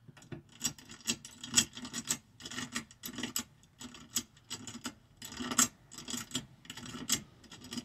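Allen key turning a steel set screw into a motorcycle armrest bracket by hand. Irregular metallic clicks and short scrapes, a few a second, as the key is turned, lifted and re-seated, with the sharpest clicks about a second and a half in and near the middle.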